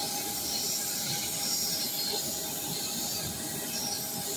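Jet airliner on the apron: a steady rushing hiss with a constant high whine, unchanging throughout.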